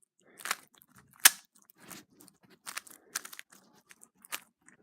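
Rubik's cube layers being twisted in quick succession: a series of sharp plastic clacks and scrapes, the loudest about a second in, as the cube is turned through a pattern algorithm.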